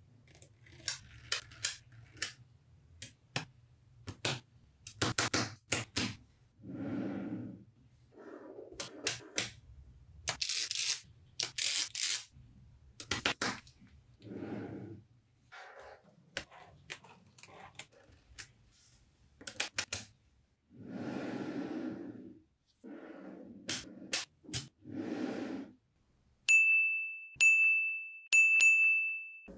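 Small magnetic balls clicking and snapping together one after another as they are set in place, with short stretches of rubbing or rattling noise between the clicks. Near the end come three short high beeps about a second apart.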